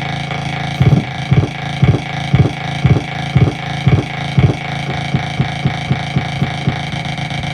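Electric guitar through a custom effects patch, playing a looped steady drone. Loud low thumps come in about a second in at about two a second, then turn into softer, quicker pulses at about four a second after the middle.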